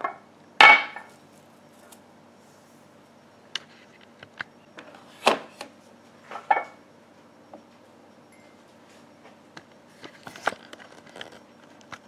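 A glass mug being handled and set down on a granite countertop and onto a coffee maker's drip tray: scattered knocks and clinks, the loudest about half a second in and a cluster near the end, over a faint steady low hum.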